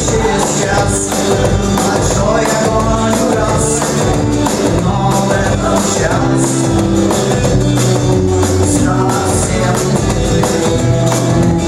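A rock band playing a song live, with the electric bass guitar's notes strong in the low end.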